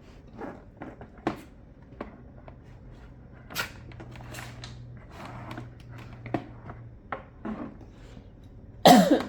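Scattered light clicks and knocks of plastic highchair parts being handled and fitted together, with a loud vocal sound near the end.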